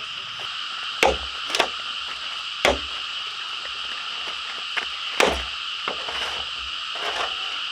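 Sharp chopping strikes, about six, irregularly spaced, over a steady high-pitched chorus of calling frogs.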